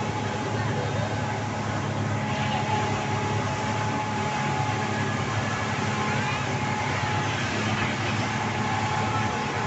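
Passenger speedboat running at speed, its engines giving a steady hum under the rushing noise of wind and water.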